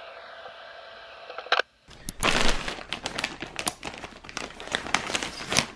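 A short steady tone and a single clunk in the first two seconds, then a plastic mailer bag crinkling and rustling as hands pull it open.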